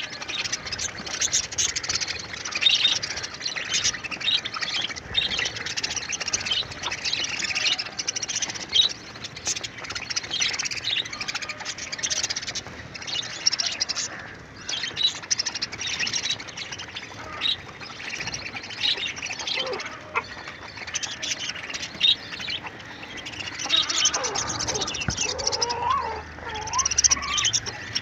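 A flock of budgerigars chattering in a crowded cage: a dense, continuous mix of short, overlapping chirps and squawks.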